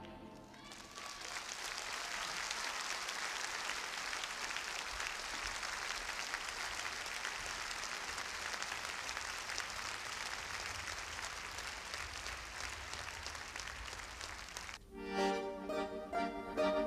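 Theatre audience applauding steadily. About fifteen seconds in, the music starts up again.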